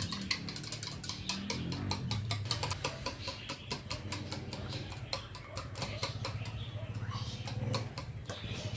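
A wire whisk beating raw eggs in a bowl, clicking against the bowl in a fast, steady rhythm of about five or six strokes a second.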